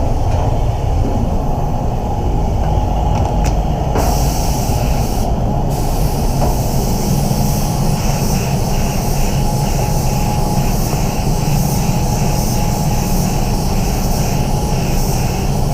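Automotive spray gun hissing as it lays a blend coat over a bumper spot repair. It starts about four seconds in, stops for a moment, then sprays steadily, over a constant low rumble.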